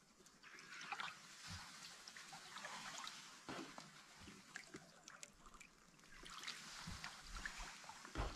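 Faint canoe paddle strokes: a soft swish of water as the blade pulls through, swelling and fading a few times, with small drips and splashes from the blade.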